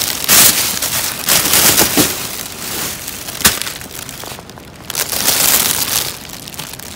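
Plastic garbage bags rustling and crinkling as they are handled, in several loud bursts, with one sharp click about three and a half seconds in.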